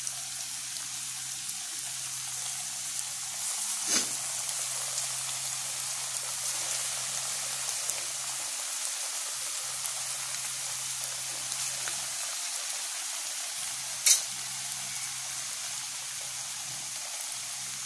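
Breaded corned beef fries deep-frying in hot oil, a steady sizzle. A short sharp tap comes about four seconds in and a louder one about three-quarters of the way through.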